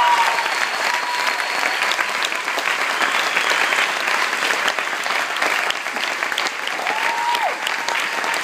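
Large standing crowd applauding steadily, a dense sustained clapping, with a few voices calling out over it near the start and again about seven seconds in.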